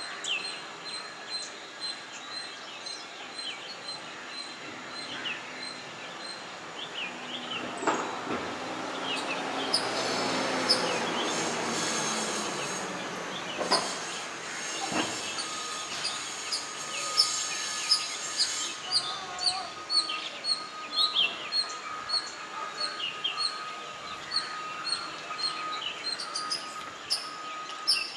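Birds chirping and calling over and over, with short, quick, high chirps throughout. In the middle a broad rushing noise swells and then fades, and in the second half a thin, steady tone runs under the chirps.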